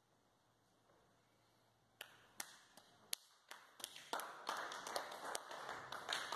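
Scattered hand claps starting about two seconds in, building into a round of applause for a carpet bowls delivery.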